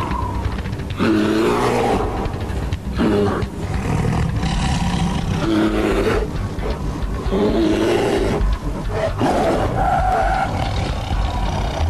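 Siberian tiger and brown bear fighting, roaring and snarling in a series of separate calls a second or two apart.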